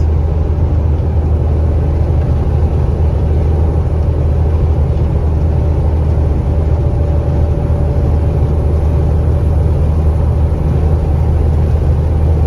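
Inside the cab of a KAMAZ 4308 truck at cruising speed: the diesel engine and road noise make a steady low drone, with wind rushing against the cab in a strong crosswind.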